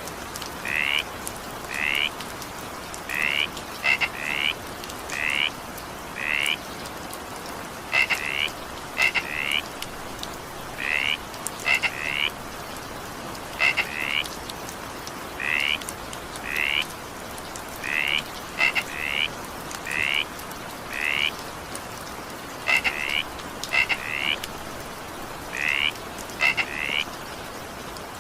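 Frogs calling over steady rain: short, high-pitched calls, often in quick pairs, repeating about once a second above an even hiss of rainfall.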